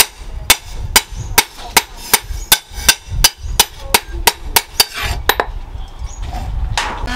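Hand hammer striking a leaf-spring steel cleaver blank on a small post anvil: sharp metal-on-metal blows at an even pace of about three a second, stopping about five seconds in.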